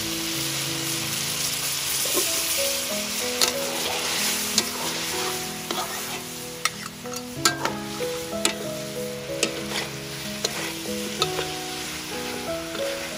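Pork ribs sizzling in a hot metal wok while a metal spatula stirs them, scraping and clinking against the pan many times from about three seconds in. Soft background music with held notes runs underneath.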